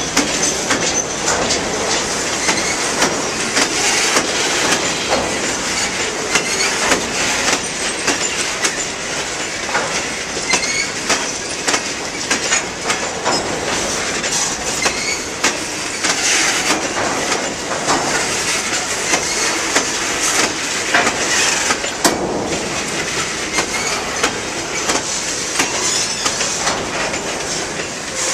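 Stone hopper cars of a long freight train rolling past close by: a steady clatter of steel wheels over the rail joints, thick with sharp clicks and knocks.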